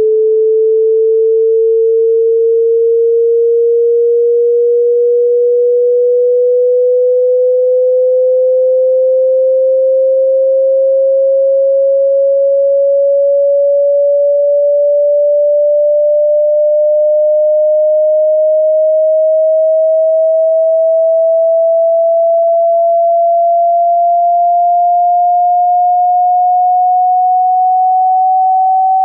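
Pure sine-wave test tone gliding slowly and steadily upward in pitch, constant in loudness: a frequency sweep played for a hearing test.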